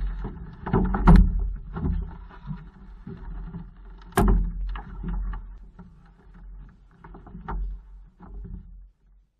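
Canoe being lifted, swung up and settled onto a carrier's shoulders, heard through the hull: a run of knocks, thumps and rubbing, with loud thumps about a second in and about four seconds in, then lighter knocks as it settles.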